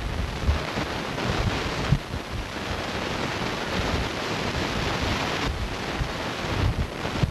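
Wind blowing across a camcorder's built-in microphone: a steady rushing hiss with irregular low buffeting thumps.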